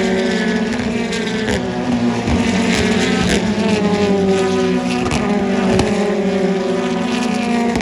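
Several racing car engines passing at speed on track, their pitch falling as each goes by, with a few short cracks over the engine noise.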